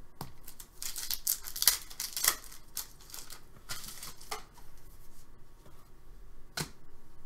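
Trading cards and plastic card sleeves being handled: a quick run of crisp rustling and scraping in the first couple of seconds, then a few scattered light clicks.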